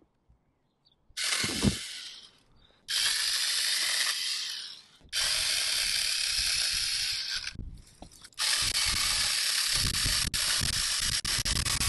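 Seyvum 12-volt cordless mini chainsaw running in four bursts, starting about a second in, its chain cutting through small twigs and then a birch branch. The bursts stop and start abruptly, and the last and longest one has a deeper rumble as the chain bites into the thicker wood.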